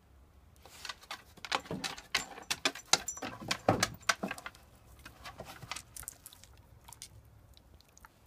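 An Irish Setter sneezing in a rapid run of short, sharp bursts for about three and a half seconds, then fainter, sparser bursts that die away.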